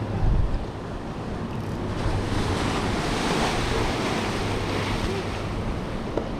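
Ocean surf washing in, swelling to a peak midway and easing off, with wind buffeting the microphone.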